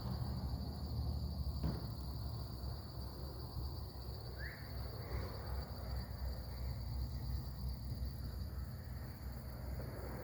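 Crickets chirring in a steady, high, continuous trill over a low outdoor rumble, with one click about a second and a half in and a brief rising chirp about four and a half seconds in.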